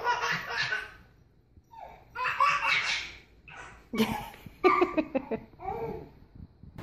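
A baby laughing in three bouts with short pauses between, the last bout the longest.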